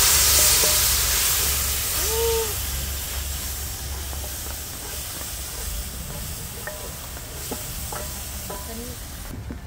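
Water poured into a pot of hot oil and frying curry masala, hissing and sizzling with a burst of steam: loud at first, then dying down steadily over the next few seconds.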